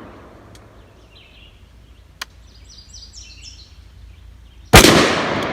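A single rifle-calibre shot from a short-barrelled PSA AR pistol in .223/5.56, about three-quarters of the way in, with a long echo rolling away after it. The echo of the previous shot dies away at the start, and birds chirp faintly in the quiet gap between.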